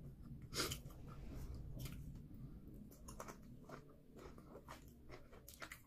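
A person chewing and smacking close to the microphone while eating starch with egusi soup and meat by hand, with irregular wet clicks from the mouth. The sharpest click comes about half a second in, and a quick run of them comes near the end.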